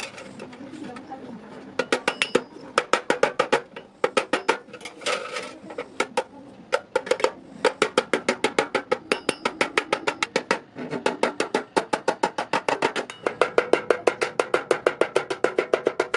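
Hammer striking iron on an anvil in fast runs of blows, several a second, with short pauses between runs and a metallic ring after the strikes.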